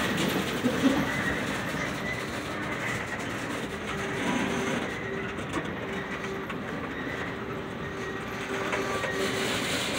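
Freight train tank cars rolling past, steel wheels clacking over the rail joints, with a faint thin wheel squeal in the second half.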